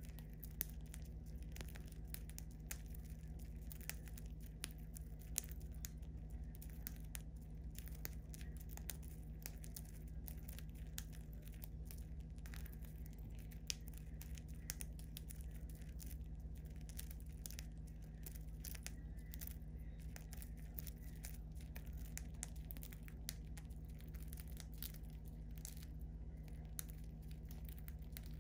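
Budgerigars pecking and husking seed from a palm: a steady run of small dry clicks and crackles, over a low steady hum.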